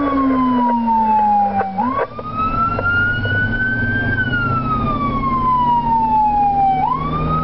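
Emergency vehicle electronic siren on a slow wail, heard from inside a responding fire department vehicle's cab. Each cycle sweeps quickly up, climbs slowly, then slides slowly down before sweeping up again, about two seconds in and again near the end. The vehicle's engine runs steadily underneath.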